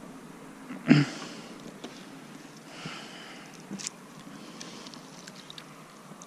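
A loud, short sniff close to the microphone about a second in, followed by faint clicks and rustling.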